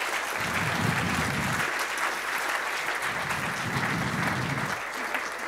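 Audience applauding, a dense steady clapping that eases off slightly near the end.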